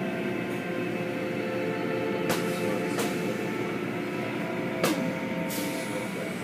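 Automatic tunnel car wash running: a steady hum of motors and pumps while the cloth-strip wash curtains swish over a foamed car, with a few sharp knocks and a short hiss near the end.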